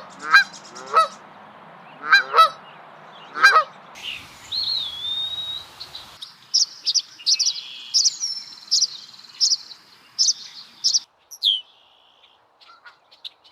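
A goose honking about five times, then after a cut at about four seconds a songbird's whistle and a run of repeated high chirps, ending with a few sharp falling chirps.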